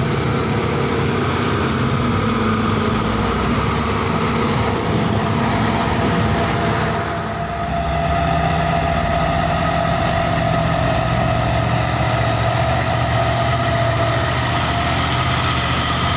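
Heavy diesel road traffic running steadily, with a bus and then a tanker truck passing close by on a hill road. The engine note dips and changes about halfway through.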